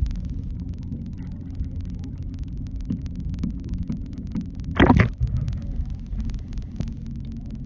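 Muffled low rumble of water moving around the camera, with one short, louder burst about five seconds in.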